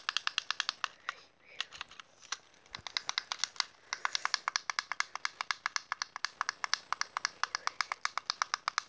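A game controller's back button pressed over and over: a rapid run of sharp plastic clicks, several a second, with brief pauses about a second in and just before four seconds in.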